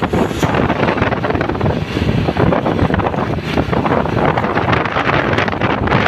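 Heavy wind buffeting the microphone over steady road and engine noise from moving traffic.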